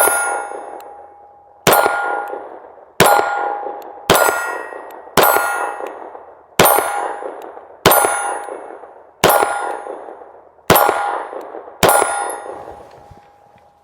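Steel target ringing as it is hit by 9mm rounds from a CZ P10C pistol, about ten hits in a slow, steady rhythm roughly every second and a quarter. Each begins with a sharp crack and rings on in a clear metallic tone that dies away before the next.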